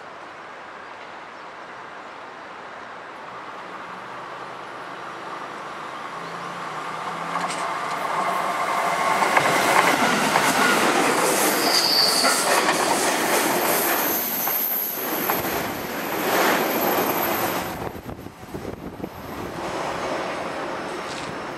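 JR Central 313 series and 211 series electric multiple-unit rapid train passing at speed on a curve. The rumble builds as it approaches, and it is loudest from about nine to seventeen seconds in, with wheel clatter over the rail joints and a thin high wheel squeal near the middle. Then it fades away.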